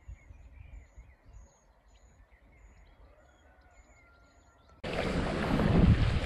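Quiet calm-river ambience with faint bird calls, then about five seconds in an abrupt switch to loud wind buffeting the microphone over water and paddle noise from a kayak under way.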